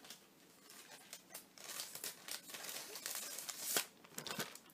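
Photo prints in a clear plastic sleeve being handled and shuffled: soft crinkling of plastic and paper sliding, growing busier after about a second and a half, with a sharper rustle near the end.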